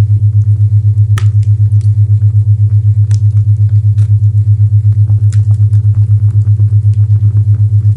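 A loud low hum pulsing evenly on and off several times a second, an isochronic tone, over faint fireplace crackle with scattered sharp pops. The strongest pop comes about a second in.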